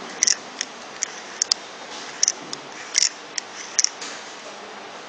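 A quick, irregular series of light, sharp clicks as the rotor and graphite vanes of an opened rotary vane vacuum pump are handled, the vanes knocking in their slots. The clicks stop about a second before the end.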